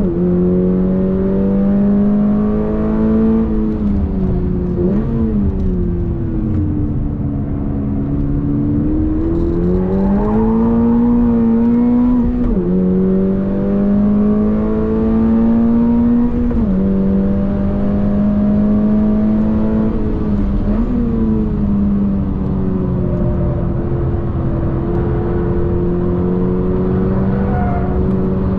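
Toyota GR86's 2.4-litre flat-four engine heard from inside the cabin at full throttle on track. The engine note sags and climbs back as the car slows for a corner and accelerates out, and twice drops in pitch suddenly as the driver changes up a gear.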